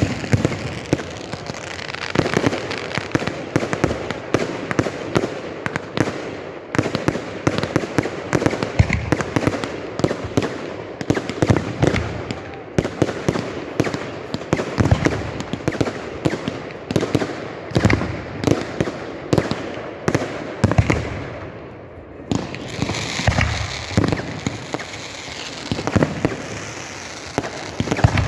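Fireworks display: a dense, continuous run of bangs and crackling, easing briefly about three-quarters of the way through before the crackling picks up again.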